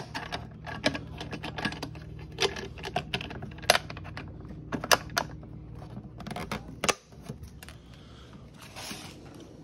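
Irregular sharp clicks and knocks of hard plastic as the latch and bracket on the Milwaukee M18 pipeline inspection camera's housing are worked by hand. The clicking stops about seven seconds in.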